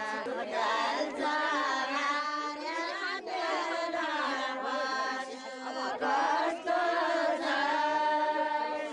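A group of women singing a chant-like folk song together, in phrases of a second or two with short breaks between them.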